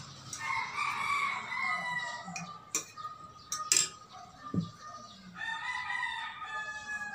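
A rooster crowing twice, each crow lasting about two seconds, with two sharp clicks between the crows.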